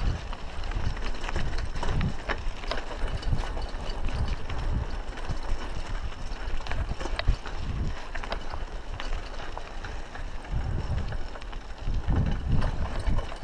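Raleigh Ascent mountain bike rolling along a dirt road: tyres crunching over loose dirt, with frequent sharp clicks and rattles from the bike over bumps. Wind rumbles on the microphone.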